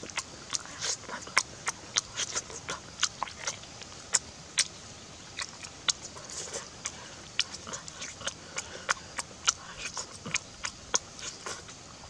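Close-up mouth sounds of a person eating grilled catfish by hand: wet chewing, lip-smacking and sucking, an irregular run of sharp smacks and clicks several times a second.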